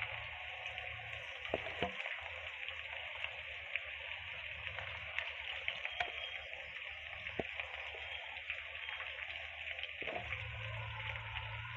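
Hot oil sizzling and crackling steadily as batter-coated chicken pakoras deep-fry in a pan, with a few faint knocks.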